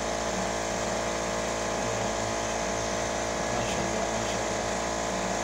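A fishing boat's engine running steadily, an even, unchanging hum.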